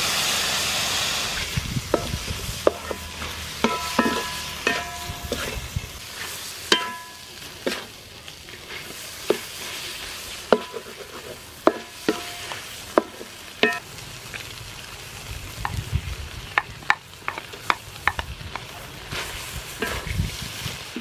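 Shrimp stir-frying with fish sauce and seasonings in a hot pan: loud sizzling at first that settles to a steady sizzle. A spatula stirs and strikes the pan throughout in irregular clanks, several of them ringing on.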